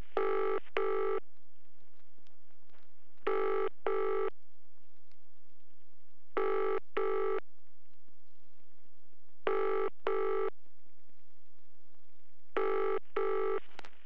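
BT telephone ringing in the British double-ring cadence: five pairs of short rings, the pairs about three seconds apart.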